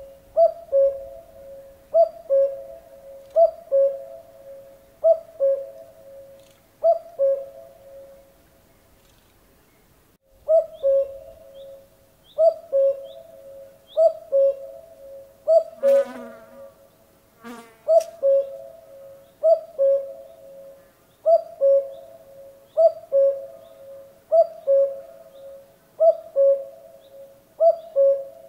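Common cuckoo calling its two-note "cuck-oo", a higher note falling to a lower one, repeated about every second and a half, with a pause of a few seconds about a third of the way in. Two sharp clicks come a couple of seconds apart around the middle.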